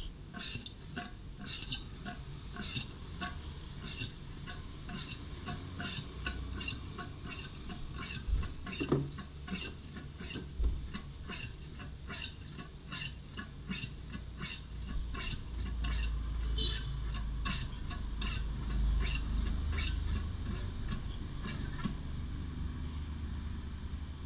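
Motorcycle front fork being pumped by hand to force out the old fork oil: a steady run of small metallic clicks and clinks, about two a second, over a low rumble.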